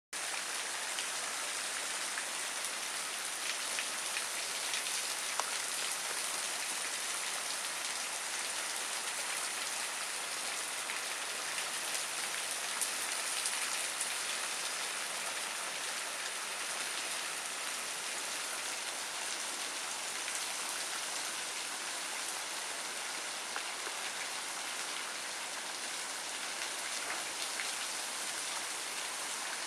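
Steady rushing of a waterfall: an even hiss of falling water with a few faint ticks.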